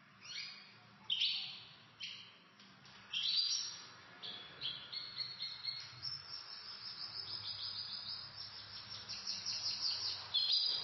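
Pet canaries singing: scattered high chirps at first, then a long, fast trill of rapidly repeated notes from about six seconds in, with more chirps near the end.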